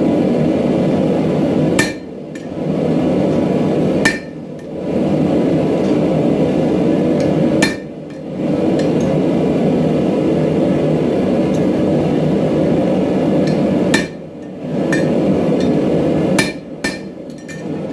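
Hammer work on steel while forging spring-steel tongs: sharp ringing strikes stand out every few seconds over a continuous loud rushing noise that drops away briefly after several of them.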